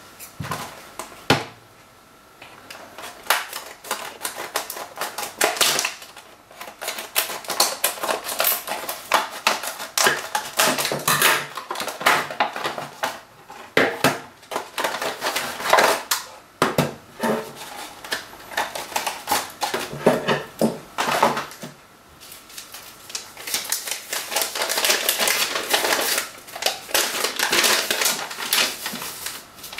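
Scissors cutting open a stiff plastic clamshell blister pack, the hard plastic crackling, snapping and clattering as it is cut and pulled apart, then paper rustling as the contents and instruction leaflet are taken out. It is a long run of sharp crackles and clicks with a few short pauses.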